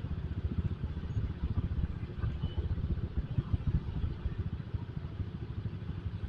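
Motorcycle being ridden: its engine running steadily, with a dense, uneven low rumble of wind buffeting the rider's microphone.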